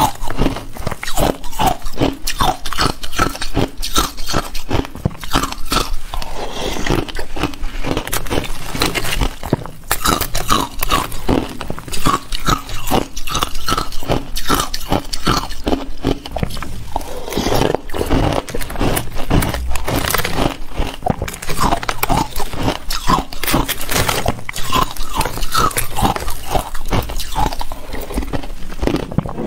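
Ice being bitten and chewed close to the microphone: a dense run of sharp crunches and cracks, broken twice by softer grinding stretches.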